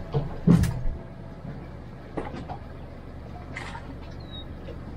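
A few knocks and clunks from a small boat being tied off to a dock piling with its mooring line, the loudest about half a second in, over a steady low hum.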